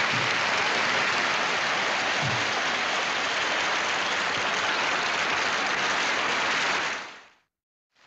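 Large audience applauding steadily, fading out near the end.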